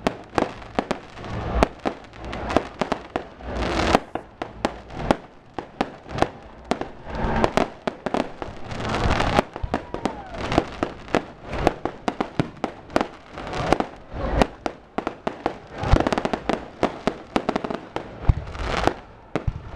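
Fireworks going off in a dense, irregular stream of sharp bangs and crackling reports, with no letup.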